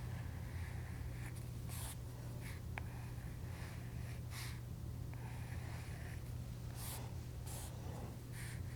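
A stylus drawing short strokes on a tablet screen: a series of brief scratchy swishes a second or so apart, with one sharp tap about three seconds in, over a steady low hum.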